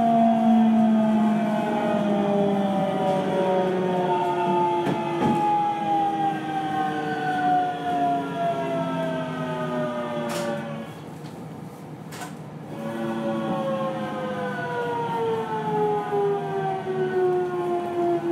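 JR Central 373 series electric train heard from inside the car, its traction motor whine falling steadily in pitch as it brakes, slowing for a station stop. The whine comes in two long descending sweeps with a short drop in level between them, and a few clicks.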